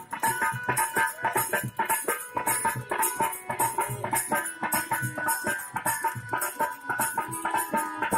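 Live folk-theatre accompaniment: a harmonium holding a note under hand drums played in a quick, even rhythm.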